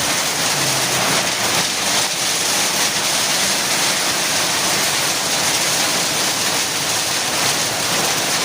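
Heavy downpour of rain mixed with hail, a loud steady dense hiss of falling water and stones.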